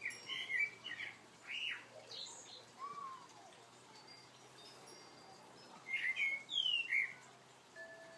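A songbird singing in two bursts of short chirping phrases with quick rising and falling whistles: one over the first couple of seconds, another about six seconds in.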